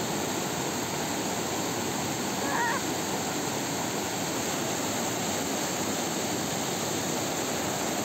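Swollen mountain stream rushing over rocks in a steady torrent, running high and strong after heavy rains.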